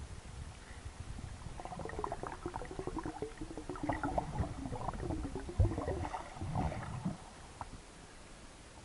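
Underwater sound of a scuba diver's exhaled bubbles gurgling and crackling, with a low rumble, from about two seconds in until about seven seconds in, then fading to a faint hiss.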